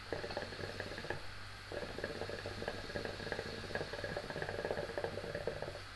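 Water in a hookah base bubbling as a smoker draws hard on the hose, with a short break about a second in and stopping near the end.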